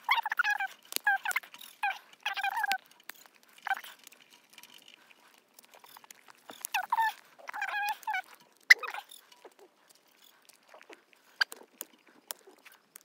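Hoof trimmers snipping a goat's hoof: sharp clicks, the loudest a little past the middle. Between them come clusters of short, high-pitched animal calls, mostly in the first three seconds and again around seven to eight seconds in.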